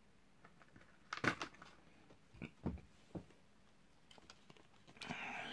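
A RAM kit's retail packaging being opened by hand: a quick cluster of sharp clicks and snaps about a second in, a few more single clicks a little later, then a brief rustle near the end.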